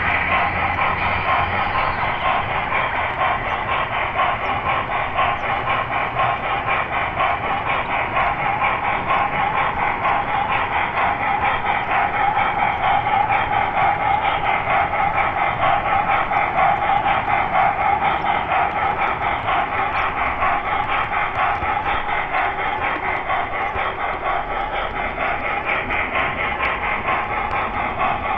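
Model train running along layout track: a steady rolling rattle and hum of wheels and drive, heard up close from a camera riding on the train.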